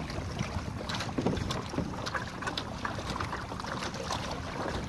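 Water splashing and lapping against the hull of a Hobie sailing kayak under way through choppy water, with wind buffeting the microphone. Short irregular splashes over a steady low rumble of wind.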